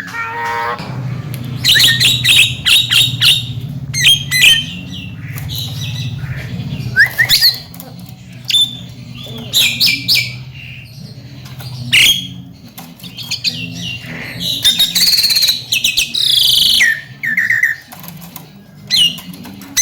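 Javan myna calling in quick, irregular bursts of whistles, chirps, rising notes and harsh clicks, over a steady low hum.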